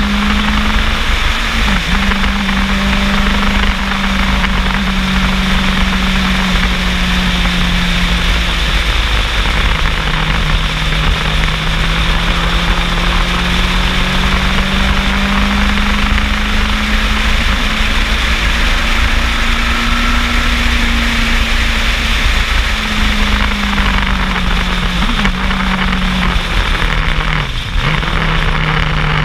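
Motorcycle engine running at a steady cruise under heavy wind rush. The engine note dips and rises gently a few times with small throttle changes.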